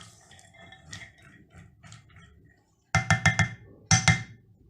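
A spoon mixing soaked chana dal in ghee in a bowl: faint scraping and clicking at first, then a quick run of sharp taps of the spoon against the bowl about three seconds in and a shorter run a second later, the bowl ringing briefly after each tap.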